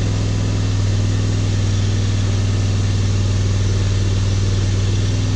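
Test-stand engine running steadily near full throttle, driving an aluminum-body, Saginaw-based high-flow power steering pump with no flow control valve; the pitch holds steady while a load valve raises the pump pressure.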